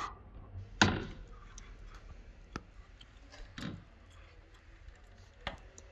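A single sharp knock about a second in, then a few faint, scattered clicks and taps.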